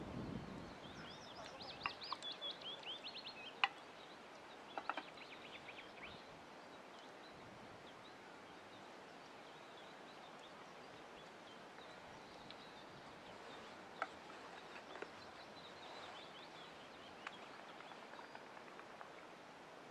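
Small birds singing in short rapid trills over a faint steady outdoor background, with a few sharp clicks and knocks, the loudest about four seconds and fourteen seconds in.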